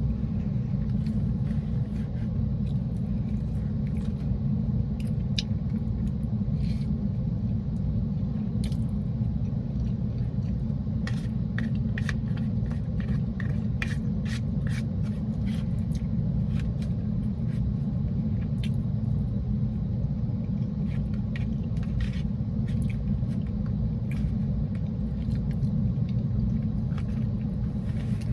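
Steady low rumble of a car heard inside the cabin, with scattered light clicks and taps of someone eating spaghetti, thickest about halfway through.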